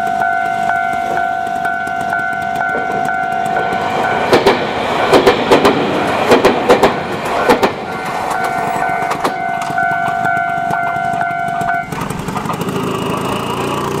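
Japanese level-crossing warning bell ringing in a steady, even pulse, drowned out for about four seconds by a passing Iyo Railway Takahama Line train, its wheels clacking loudly over the rail joints. The bell then rings on and stops about two seconds before the end.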